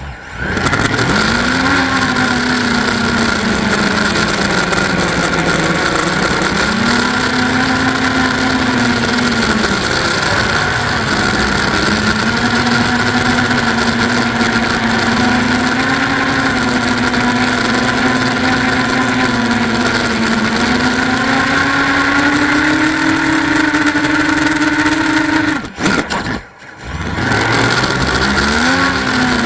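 Eachine Wizard X220 racing quadcopter's brushless motors and propellers, heard from a camera mounted on the quad: a steady buzzing whine whose pitch rises and falls with the throttle. Near the end it falls away for about a second, then spools back up.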